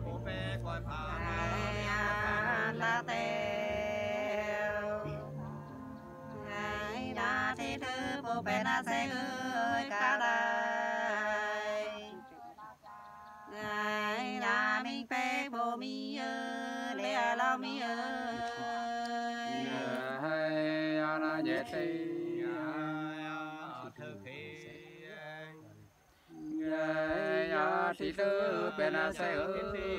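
Unaccompanied Nùng sli folk singing: women's voices sing long, drawn-out, wavering lines with brief pauses. Near the end, after a short gap, lower men's voices take up the reply in the call-and-response.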